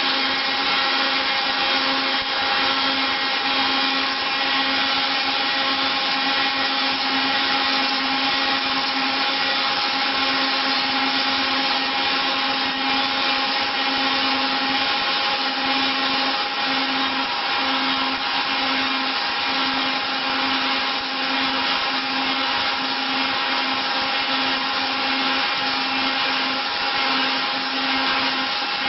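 Wood copy milling machine running steadily: its cutter motors give a continuous high whine over a steady hum, with a faint flutter in the hum through the second half.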